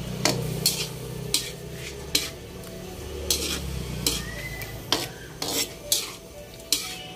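Spatula scraping and knocking against a wok while squid, ginger and tomato are stirred and tossed, about a dozen uneven strokes over a low sizzle from the pan.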